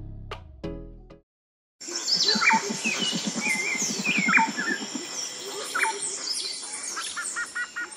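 The song's last notes die away, followed by a brief silent gap. Then come birds chirping and calling over a steady high hum, with a low rapid rattle for a couple of seconds. Near the end there is a quick run of repeated chirps, about five a second.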